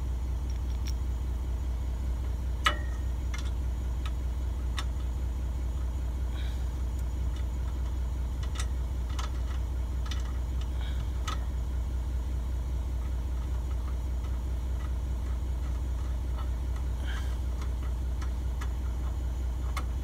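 A tractor engine idling steadily, with scattered light metallic clicks and taps as a bolt and loose washers are worked into a sawmill track roller; one sharper click about two and a half seconds in.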